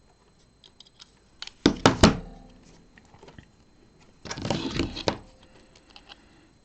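Small hand tools and wire being worked at a workbench while stripping wire ends: a few sharp clicks and knocks about two seconds in, then a short rasping scrape of about a second near the middle, with light ticks between.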